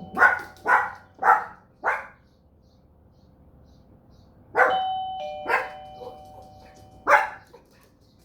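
A dog barking four times in quick succession, then a two-note doorbell chime (ding-dong) about halfway through, which the dog answers with three more barks. The dog is barking in reaction to the doorbell.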